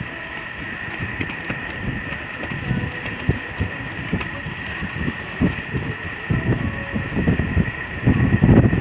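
A horse cantering on an arena surface, its hoofbeats heard as irregular muffled thuds, about two to three a second. Wind rumbles on the microphone, swelling louder near the end, over a steady high tone.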